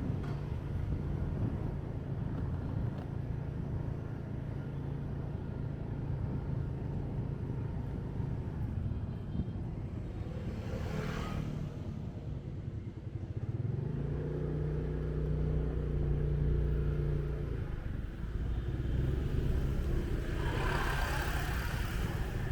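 Motorbike engine running steadily while riding, with other motorbikes and traffic passing; one vehicle passes about halfway through, and another engine grows louder for a few seconds shortly after.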